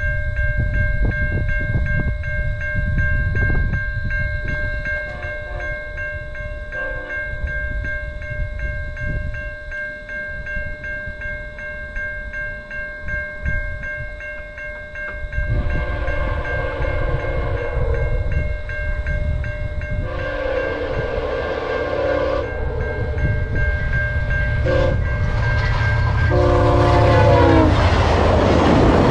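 Level-crossing bell ringing steadily while a VIA Rail GE P42DC-hauled passenger train approaches, sounding its horn in the grade-crossing pattern: two long blasts starting about halfway through, a short one, then a final long one. The train then rushes past at speed with loud wheel and wind noise.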